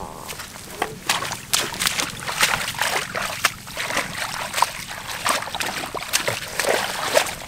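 Shallow water splashing and sloshing in quick, irregular bursts, as something is worked through it.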